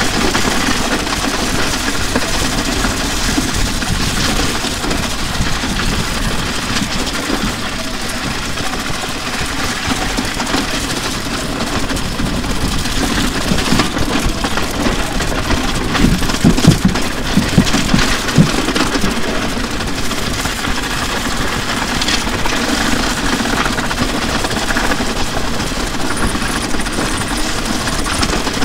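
A wrecked drum kit dragged along wet asphalt: a continuous grinding, rattling scrape of shells and metal hardware on the road, with a cluster of louder knocks and clanks a little past halfway as the pieces tumble.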